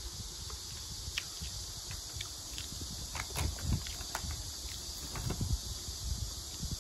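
A hand rummaging in a foil-lined snack bag of puffed rice crackers: the bag crinkles in scattered crackles, with soft crunchy chewing, over a steady hiss.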